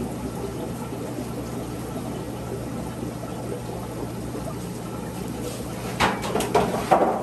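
Steady running and trickling of aquarium water, with a few splashes near the end as water and a discus are scooped into a plastic fish bag.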